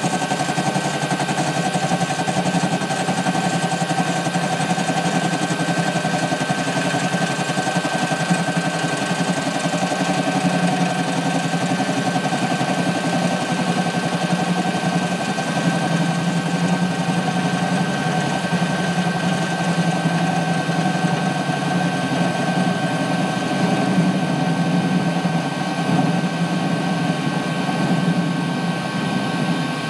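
Warco mini lathe running steadily at 600 RPM with a constant whine from its motor and gears, while a carbide-insert tool takes a light facing cut across the end of a 40 mm mild steel bar.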